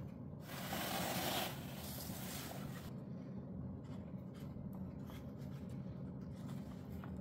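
Hands handling objects: a rustling, scraping rub for about two and a half seconds near the start, then a few faint handling clicks over a steady low hum.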